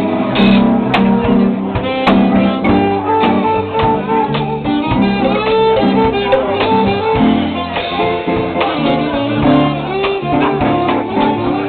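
Live band music playing.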